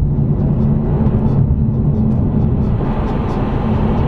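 Steady road and engine noise inside a Mercedes C250's cabin as it cruises at about 70 mph.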